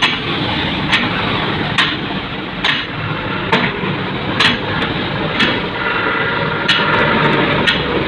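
Steady street traffic noise with a sharp knock roughly once a second, evenly spaced. The knocks are like hammer strikes.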